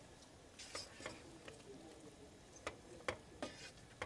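Faint, irregular light clicks and taps of a utensil against the soup pot, about seven over four seconds.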